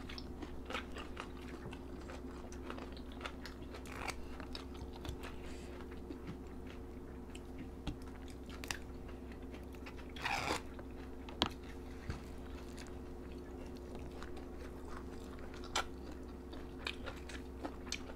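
Close-up eating sounds of people eating rice, curry and raw vegetables by hand: chewing, biting and crunching with scattered small clicks, over a steady low hum. A brief louder noise comes about ten seconds in.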